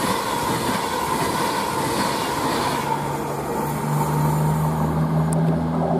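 An Avanti West Coast express train runs through the station at speed, making a loud rushing noise of wheels on rail with a high ringing tone. The noise fades about halfway through as the train clears, leaving a low steady engine hum.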